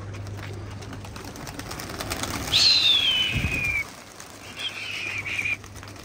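Flock of domestic pigeons in flight, with light wing flaps. A loud high whistle falls in pitch about two and a half seconds in, and a shorter whistle follows near the end.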